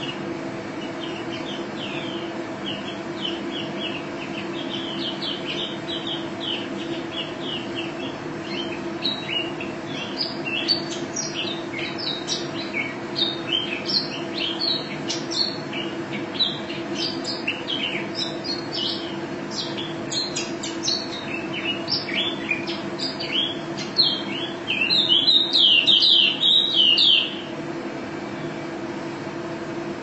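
Caged white-eye (pleci) singing: a rapid run of short high chirps that grows denser, breaking into a loud, fast trill for about three seconds near the end. A steady low hum lies underneath.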